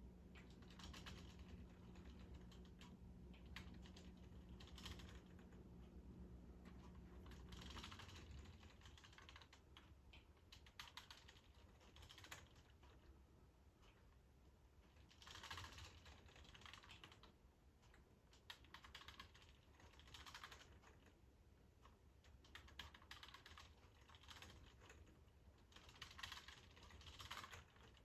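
Faint clusters of light plastic clicking and rattling from a hand-cranked K'NEX model carnival ride as its parts turn, coming in irregular bursts.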